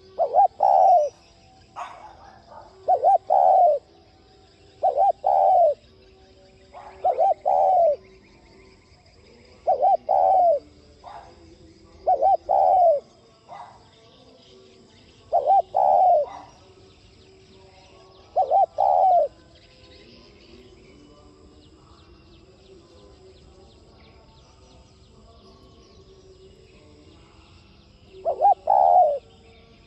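Spotted dove cooing: short phrases of two or three quick notes, repeated about every two to three seconds. A pause of about eight seconds follows, and the coos start again near the end.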